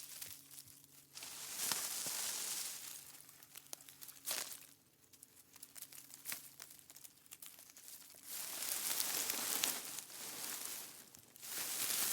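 Dry forest-floor foliage, a mix of leaves, twigs, grass and pine needles, crunching and crackling in bursts: a longer stretch about a second in, a short burst near the middle, and a longer stretch in the last third, with light crackles between.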